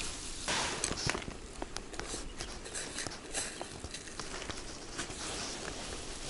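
Rustling and handling noise from a hand rummaging in a soft fabric bag, with scattered small clicks and taps.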